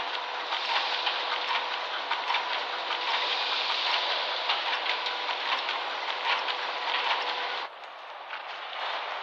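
Flour-mill machinery clattering, a dense rattle of rapid ticks over a steady hum. Near the end it cuts off abruptly to a quieter crackle.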